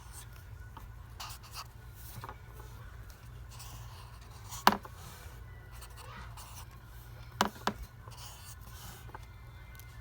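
Handwriting: short scratchy writing strokes, with a sharp tap about halfway through and two quick taps a little later.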